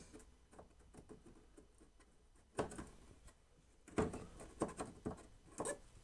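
Small clicks, taps and light knocks of mounting bolts and hardware being worked into the top of an over-the-range microwave through the cabinet above it. There is a louder knock about two and a half seconds in and a run of sharper knocks and clicks near the end.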